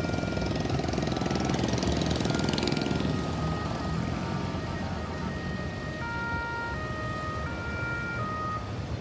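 Emergency vehicle siren sounding steady tones that jump between a few pitches, over heavy traffic rumble that is loudest two to three seconds in.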